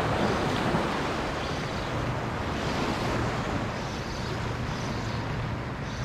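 Steady wind buffeting the microphone over small waves lapping at a shallow sandy shoreline.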